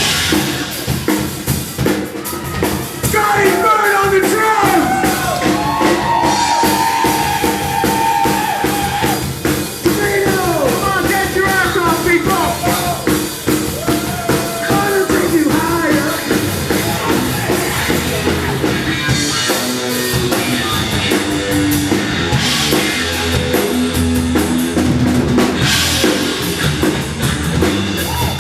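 Rock band playing, with the drum kit and bass drum prominent under a melody line that bends up and down in pitch through the first half.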